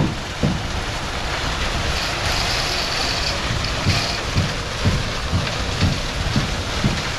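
Truck-mounted concrete boom pump running steadily while pumping concrete into wall forms, with a low thump about twice a second from about four seconds in as the pump strokes.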